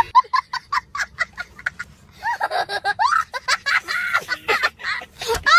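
A young boy's high-pitched vocal outburst: quick, choppy bursts for about the first two seconds, then longer squeals that waver up and down in pitch.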